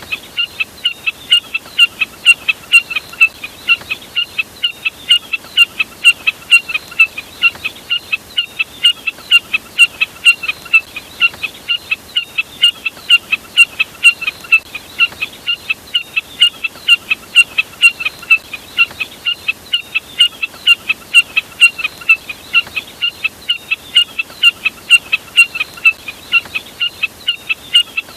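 Jack snipe call: a short, sharp, high note repeated about three times a second, on and on without a pause.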